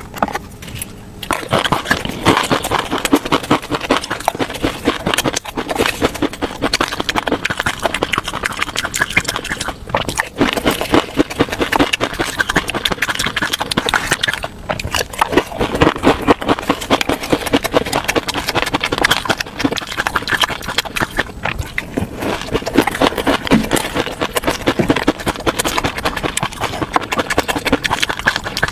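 Fish roe being worked close to the microphone: a dense, continuous crackle of many tiny pops and wet squelches. It grows loud about a second in and carries on without a break.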